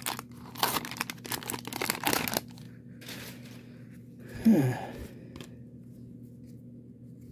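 A 1990 Donruss wax-paper card pack wrapper is torn open and crinkled for about two and a half seconds, followed by the quieter rustle of the baseball cards being handled. About halfway through there is a brief voiced sound falling in pitch, and a faint steady hum runs underneath.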